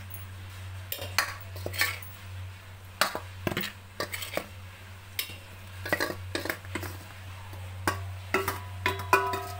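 A metal spoon clinking and scraping against a steel bowl and a stainless-steel blender jar as wheat flour is spooned in, in irregular strokes. Near the end a few clinks leave the steel jar ringing briefly.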